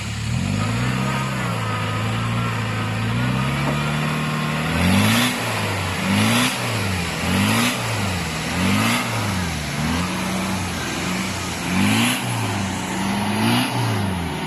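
Land Rover Discovery's diesel engine revving hard as the 4x4 fights to climb out of deep mud under tow: a steady raised rev for a few seconds, then about seven short rev bursts, rising and falling roughly once a second, with the spinning tyres churning mud at each peak.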